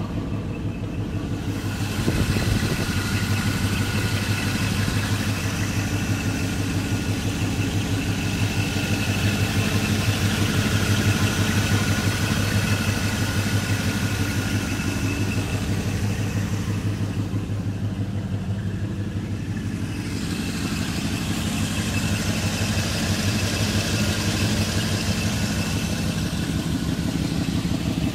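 1977 Corvette's small-block V8 idling steadily through chrome side-pipe exhausts, its even firing pulses running without revving.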